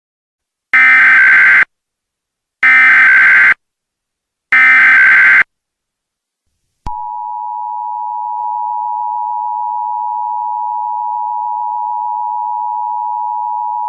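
Emergency Alert System tones: three one-second SAME header data bursts, a rapid high digital warble about a second apart, followed about seven seconds in by the steady two-tone EAS attention signal. Together they mark the start of an emergency alert broadcast, here an AMBER Alert.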